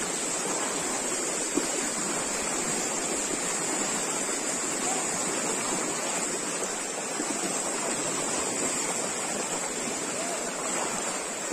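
Steady, even rush of shallow floodwater flowing, with no single splash standing out.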